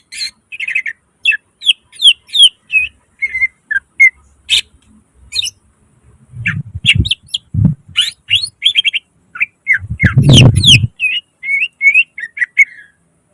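Green leafbird (cucak ijo) in full, energetic song: quick runs of short whistled notes and slurred chirps, some rising and some falling. Low thuds come about six to eight seconds in, and a louder rumbling thump with a burst of noise about ten seconds in.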